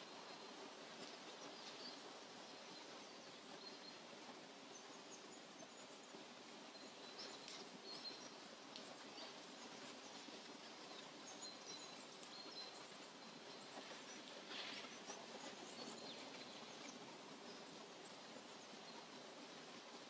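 Faint forest ambience: a steady soft hiss with scattered short, high bird chirps.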